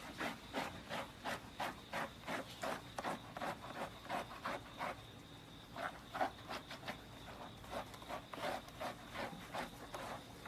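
Hands scrubbing a wet, soapy golden retriever's coat with a small brush, a quick rhythmic rubbing of about three strokes a second with a brief pause midway.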